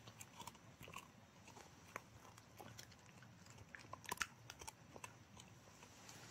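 A dog chewing dried beef lung jerky: irregular soft crunches and clicks of teeth on the dry treat, with a louder cluster of crunches about four seconds in.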